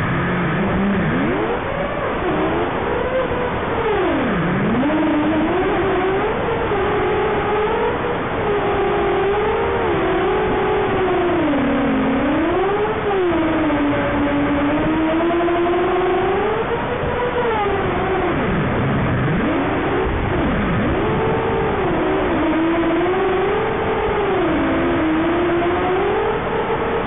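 Brushless motors and propellers of a WQ230 FPV quadcopter, one Xnova and three T-Motor, whining in flight. The pitch swoops up and down continually with throttle and drops sharply several times, about four and a half, twelve, nineteen and twenty seconds in.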